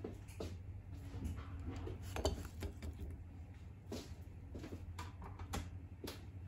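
Kitchen handling sounds: scattered clinks and knocks of a metal spoon and a glass bowl against the dish and counter, the sharpest a little over two seconds in, over a low steady hum.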